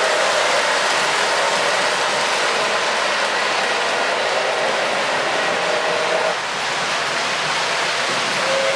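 O-gauge MTH RailKing Coors Light Silver Bullet model train running on three-rail track: a steady rumble and clatter of wheels and motor.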